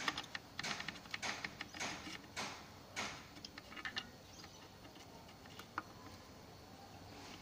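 Metal gearbox parts clicking and scraping as the reverse shaft and gear are fitted by hand into a Ford F-1000 transmission case: a quick run of light clicks and scrapes, thinning to a few single ticks after about four seconds.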